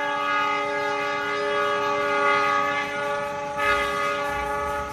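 A train locomotive's horn sounding one long held blast, which grows louder and brighter about three and a half seconds in and eases off just before the end.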